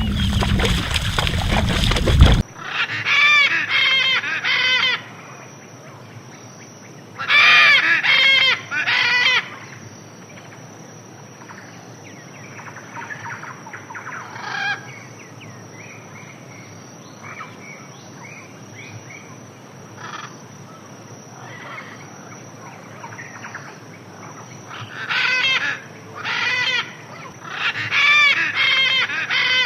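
Birds on a flooded savanna giving loud, harsh calls in bunches of several notes, with fainter calls in between over a steady high-pitched hum. A loud rushing noise at the start cuts off about two seconds in.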